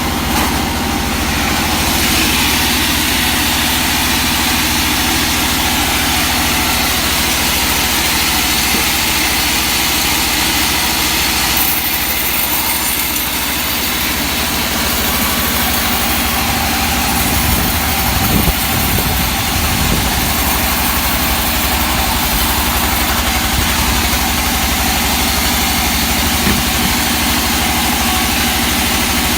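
Sawmill machinery running: a steady engine hum with a constant high hiss over it, briefly louder about two-thirds of the way through.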